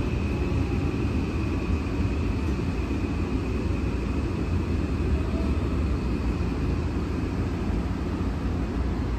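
Inside a Tokyo Metro 17000 series subway car slowing into a station: a steady low running rumble with a thin high whine that fades about halfway through.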